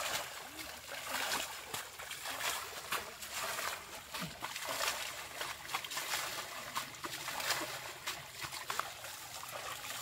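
Repeated splashes and sloshing of stream water as it is scooped up with a small pail and thrown over cattle standing in a shallow stream, with wading through the water in between.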